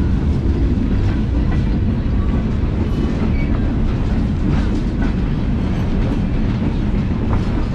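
Passenger railcar rolling along the track: a steady low rumble of wheels on rail with faint scattered clicks and rattles.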